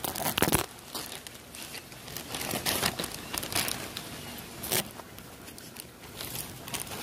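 Plastic bag crinkling as it is handled, in irregular bursts.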